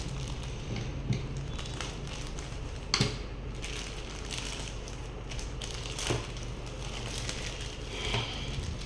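Hands handling a small product box and its packaging: scattered rustles and light clicks, with a sharper knock about three seconds in and another about six seconds in, over a steady low hum.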